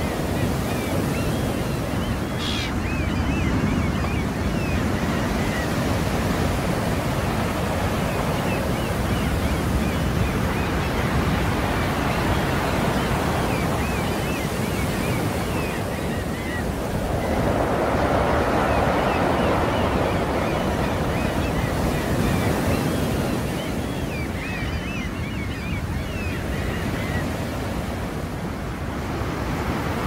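Sea waves washing in continuously, with a swell that builds louder a little past the middle and then eases off.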